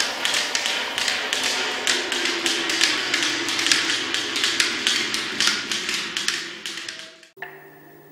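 Rapid, irregular tapping, about four to five taps a second, which cuts off suddenly about seven seconds in. A faint steady low tone follows.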